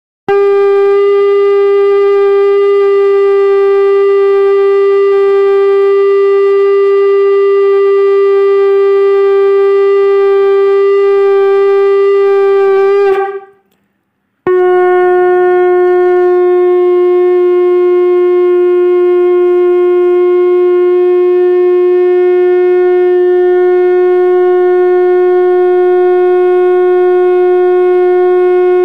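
Conch shell (shankh) blown in long, steady notes. One note is held for about thirteen seconds and dies away, and after a pause of about a second a second, slightly lower note is held.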